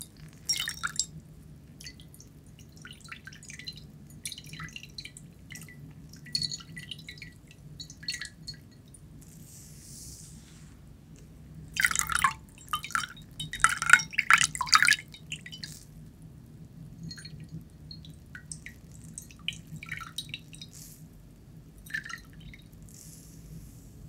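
Water dripping into a ceramic bowl from a wet sponge held over it: scattered single drops, with a heavier, louder spatter of drips about twelve to fifteen seconds in.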